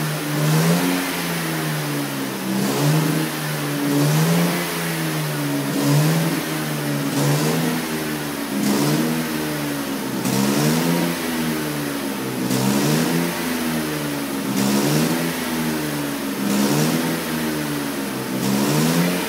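Car engine heard at the exhaust tailpipe, revved up and let fall back again and again, about every two seconds, during an HHO decarbonising treatment to blow loosened carbon out through the exhaust.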